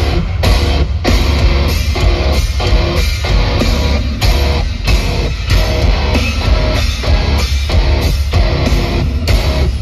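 Metalcore band playing live at full volume: pounding drum kit and heavily distorted guitars, with heavy drum hits about twice a second.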